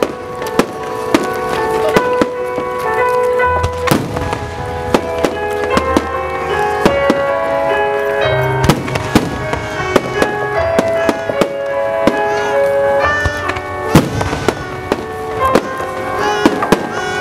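Aerial fireworks shells bursting in many sharp bangs at irregular intervals, over music with sustained chords.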